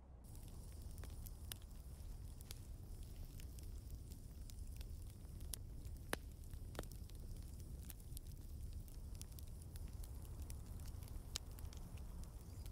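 Fire crackling in a smoking metal drum: scattered sharp pops and clicks over a steady low rumble.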